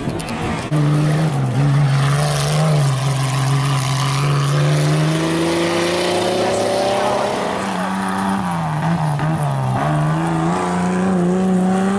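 Off-road 4x4 race truck engine running hard, its pitch climbing slowly over several seconds, then dropping and rising again a few times near the end.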